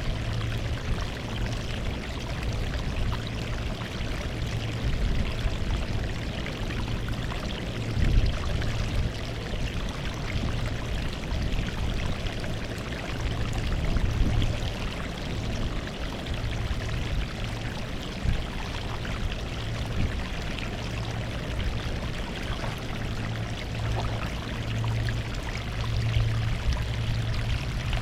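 Sea water washing over a rocky shore: a continuous rush and splash of water, with a few louder surges, one about eight seconds in and another about fourteen seconds in.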